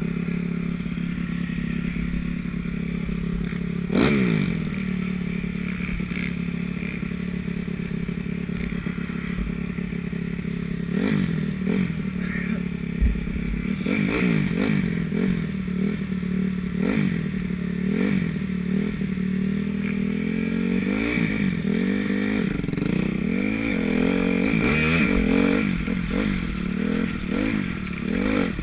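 Honda CRF250 motocross bike's single-cylinder four-stroke engine. It runs at a steady note at first, with a sharp knock about four seconds in. Then, about a third of the way through, it starts revving up and down over and over, about once a second, as the throttle is worked around the track.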